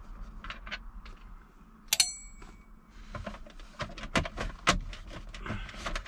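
Hand work with a screwdriver on a truck's steering column being taken apart: a sharp metal clink about two seconds in that rings briefly, then a string of small clicks and knocks as parts and screws are handled.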